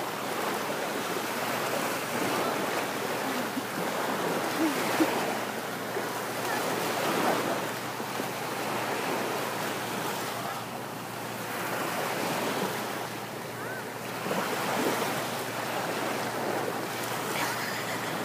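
Small sea waves washing onto a sandy beach: a steady noisy wash that swells and eases, with wind buffeting the microphone.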